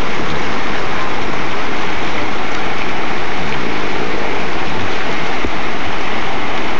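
Whitewater rapid rushing, a loud, steady noise of churning river water close to the microphone.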